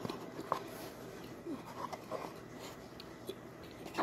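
Metal spoon digging into a bag of cornstarch and scooping out a heap of the packed powder: soft crunching of the starch and crinkling of the bag, with scattered sharp clicks.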